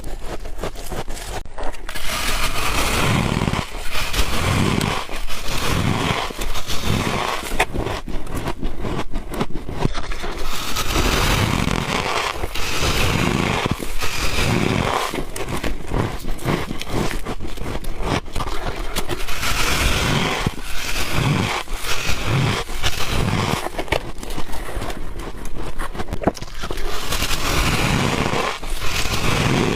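Close-miked biting and chewing of soft freezer frost and ice: a continuous crunching and crackling, with a chewing pulse about once a second.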